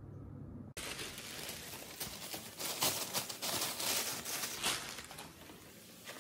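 Thin plastic carrier bag rustling and crinkling as plastic takeout containers are lifted out of it, starting abruptly about three-quarters of a second in after a low room hum.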